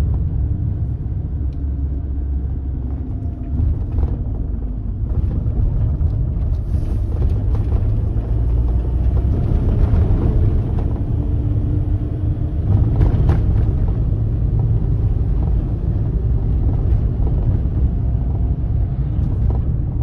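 Vehicle on the move: a steady low rumble of engine and road noise, with a few light knocks.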